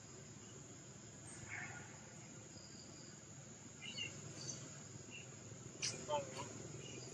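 Faint steady high drone of insects, with a few short chirps and calls over it and a sharp click and brief falling call about six seconds in.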